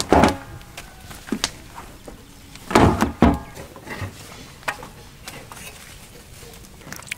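A wet cloth of freshly steamed idlis is handled and turned out onto banana leaves, giving rustling and soft knocks. Two loud, short pitched sounds stand out, one right at the start and one about three seconds in.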